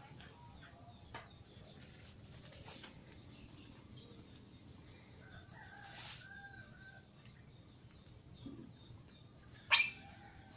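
Outdoor ambience of insects buzzing at a high, steady pitch in short repeated stretches, with a few faint bird calls. Near the end, one sharp, brief crack is much louder than anything else.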